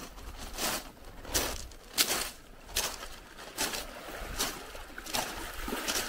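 Footsteps on a sandy beach at a steady walking pace, a step roughly every 0.8 seconds, over a low steady rumble.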